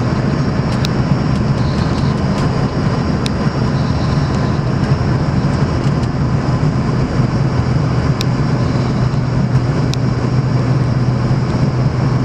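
Steady jet engine and airflow noise inside an airliner cabin during the climb after takeoff, with a strong low hum and a few faint clicks.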